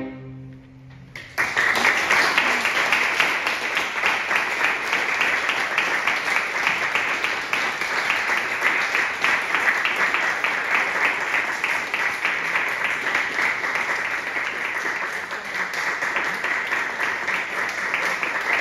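The last chord of a string quartet dies away, and about a second later a small audience breaks into steady applause.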